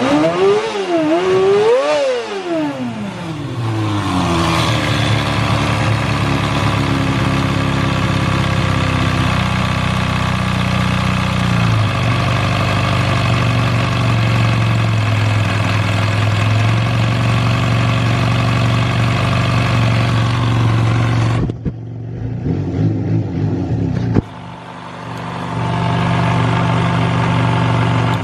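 Kawasaki Balius ZR250A's 250 cc inline-four engine blipped twice, then settling into a steady idle. The idle carries an abnormal noise that the seller flags. About 21 seconds in the sound drops off suddenly, and after a click a few seconds later the idle resumes.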